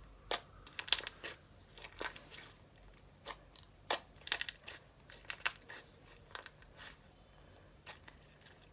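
Clear slime being stretched and squeezed by hand, giving irregular sharp clicks and crackly pops in small clusters with short pauses between.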